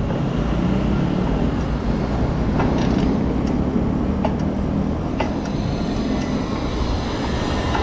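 Steady wind rumble on the camera microphone mixed with tyre and road noise from a moving bicycle, with a few sharp clicks.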